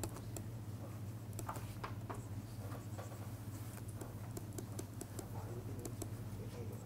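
Faint, irregular clicks and taps of a stylus writing on a tablet screen, over a steady low hum.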